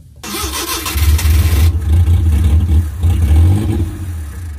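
Suzuki Multicab F5A three-cylinder engine being cranked on its starter motor, a harsh noisy burst for the first second and a half over a steady low churning that fades near the end, without catching: the ignition now sparks but the tank is out of gasoline.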